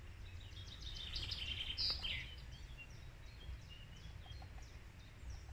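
Songbirds chirping and trilling in woodland, a burst of louder overlapping calls about a second in ending with a falling call, over a steady low rumble.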